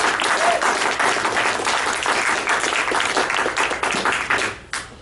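Small audience applauding with dense, irregular hand claps that die away about four and a half seconds in, with one last stray clap near the end.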